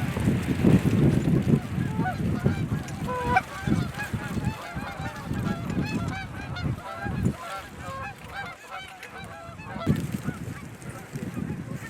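A large flock of Canada geese honking and clucking together, many overlapping short calls, with a low rumble underneath that is strongest in the first couple of seconds.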